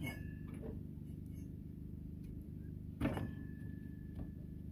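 Metal clanks from a belt being worked around the idler pulley on a steel mower deck: one at the start and a louder one about three seconds in, each leaving a short ringing tone. A steady low hum sounds underneath.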